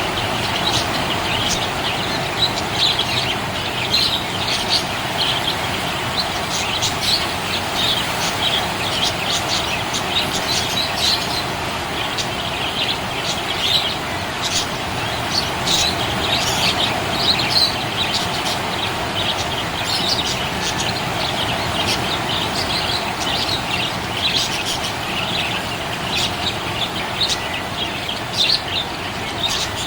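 Budgerigar chirping and chattering without pause, a quick run of short high chirps over a steady background hiss.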